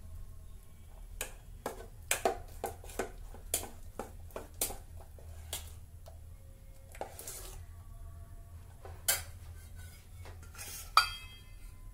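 A steel spoon stirring thick batter in a stainless steel pot, clinking and scraping against the pot's sides in irregular strokes. A louder clink comes near the end.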